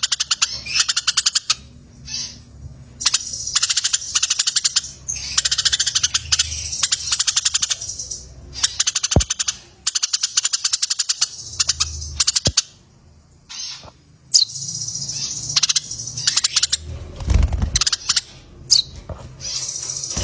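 Sparrows and a kingfisher calling: bursts of fast, dry chattering trills, one after another with short gaps, as on a bird-song training track of fighting sparrows.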